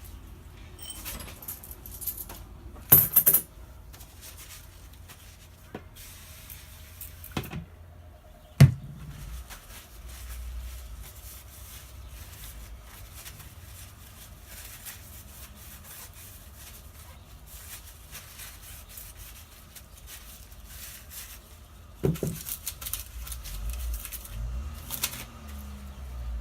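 Workshop work on a car's rear differential: a few sharp knocks and clanks of tools and metal parts, the loudest about 3 and 9 seconds in and a cluster from about 22 seconds in, with rustling and handling noise between them.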